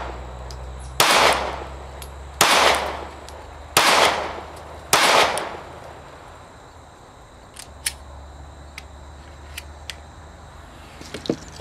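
Glock 43X 9mm pistol firing four shots, a little over a second apart, each with a short ringing tail, the last about five seconds in. A few faint clicks follow.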